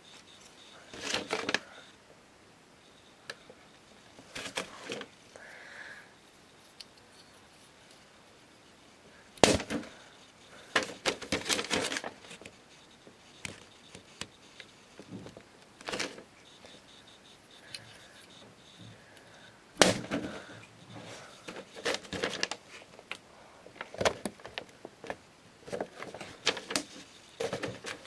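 A thrown Lego dagger striking a paper-covered target with sharp smacks, the two loudest about ten seconds apart, with bursts of lighter plastic clicks and rattles between them.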